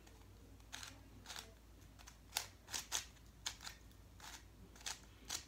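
Stickerless plastic barrel cube, a 3x3 shape-mod twisty puzzle, turned by hand through a J-perm: a string of about ten short plastic clicks and scrapes as its layers are twisted, irregularly spaced.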